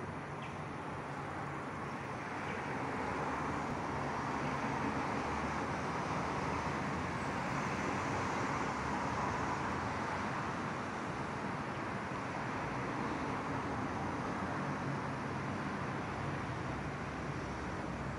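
Steady hum of distant road traffic, an even rushing noise that swells slightly and then holds level.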